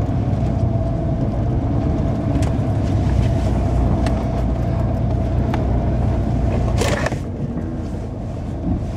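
Pickup truck engine and drivetrain heard from inside the cab while driving, a steady low rumble. About seven seconds in there is a short clunk, and the engine note drops and quietens. The owner says the motor runs shaky and still sounds good.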